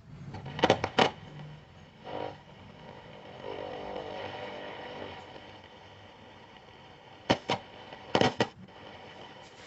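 Several sharp knocks or clicks: a pair about a second in, another a second later, then a cluster near the end, over a faint steady hum.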